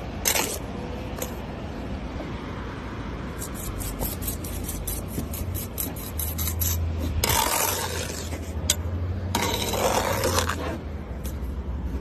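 Steel trowel scraping wet mortar along the top of a concrete block wall, with light taps and then two longer, louder scrapes in the second half, over a steady low hum.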